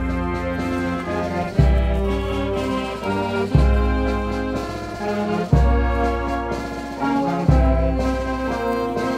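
Brass band playing slow, sustained chords, with a heavy low note struck about every two seconds.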